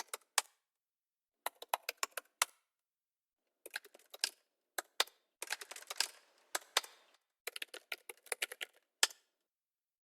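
Short runs of quick key clicks from typing on a computer keyboard, separated by dead silence. Several runs end with one louder single key strike, the Enter key slapped hard.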